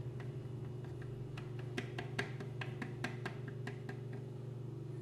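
Thick, creamy requeijão pouring from a plastic blender jug into a plastic cup: a string of small clicks and plops, most of them between one and four seconds in, over a steady low hum.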